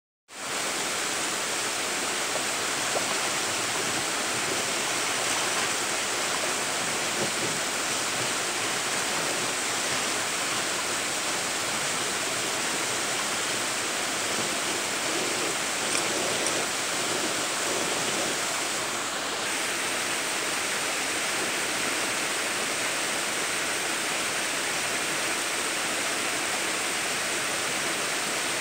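Shallow rocky creek running steadily, water rushing over rocks.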